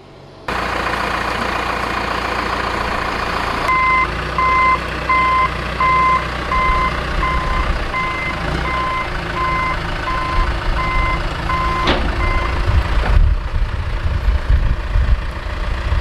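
Diesel engines of a John Deere backhoe and a tractor running, while a backup alarm beeps evenly, about one and a half times a second, from about four seconds in for some nine seconds. A sharp clank sounds just before the beeping stops, and the low engine rumble grows heavier near the end.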